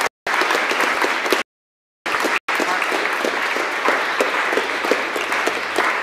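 Audience applauding at the close of a lecture, a dense patter of many hands clapping. The sound drops out completely for about half a second near the middle of the applause.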